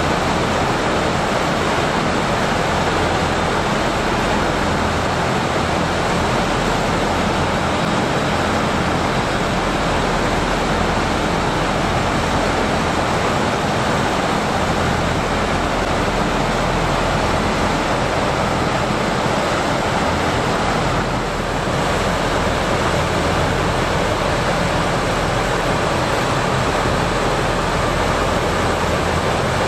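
LCAC air-cushion landing craft running on its cushion: its gas turbines, propellers and lift fans make a loud, steady rushing noise with a low hum underneath.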